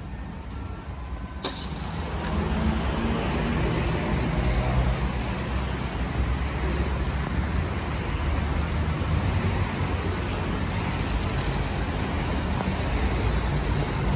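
City road traffic: a steady rumble of vehicle engines and tyre noise. A sharp click about a second and a half in, after which the traffic is louder.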